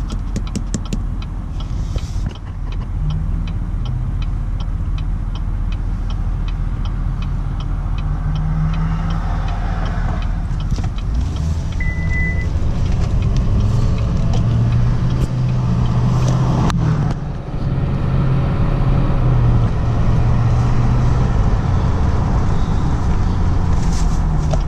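Duramax L5P 6.6-litre V8 turbodiesel in a 2019 Chevrolet pickup, heard from inside the cab while driving, its engine note rising and falling as the truck speeds up and eases off. A fast, even ticking runs through the first several seconds.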